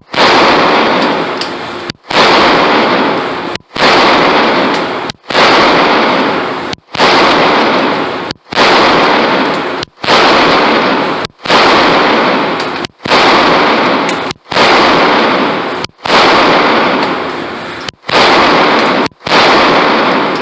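Walther PPQ pistol fired in steady slow succession, about thirteen shots roughly a second and a half apart. Each shot rings on in the echo of an indoor range before the next.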